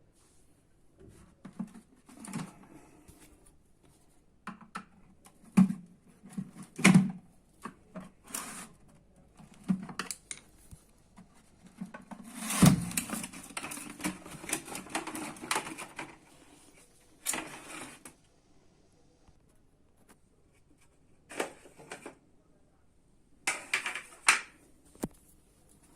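Hands working on a Bosch Classixx 5 washing machine's door during a handle repair: irregular clicks, knocks and rattles of plastic and metal parts. The loudest knock comes about halfway through, followed by a few seconds of scraping and rattling.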